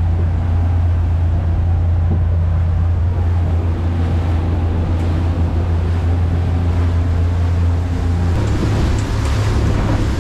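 Boat engine running steadily under way, a low drone, with the rush of wind and water alongside. About eight seconds in, the drone shifts in pitch and the hiss of wind and water grows louder.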